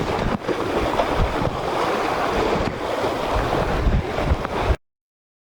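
Wind buffeting the microphone over surf washing on the shore; the sound cuts off abruptly near the end.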